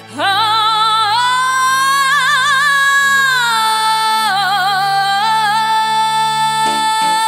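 Pop song intro: a female voice swoops up into a long, high held note with vibrato over sustained low chords. A drum beat comes in near the end.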